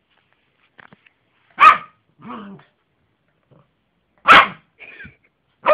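Yorkshire terrier barking: two sharp, loud barks about two and a half seconds apart, each followed by a shorter, softer sound.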